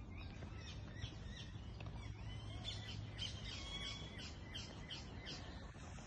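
Several birds chirping and singing in quick, short calls one after another, over a low steady background rumble.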